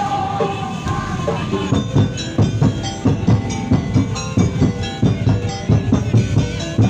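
Percussion ensemble music: drums and sharp wood-block-like strokes playing a fast, steady beat that comes in about a second and a half in, with a pitched tone falling at the start.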